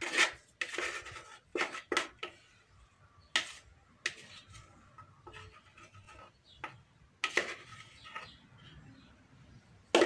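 A spoon scraping and knocking against a plastic blender jar as thick batter is scraped out into a cake pan: irregular scrapes and taps, with quieter stretches in the middle.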